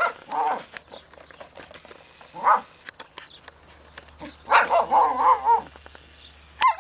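Australian Shepherd barking and growling in short angry bursts while wrestling a ball toy, with a longer run of barks about four and a half seconds in.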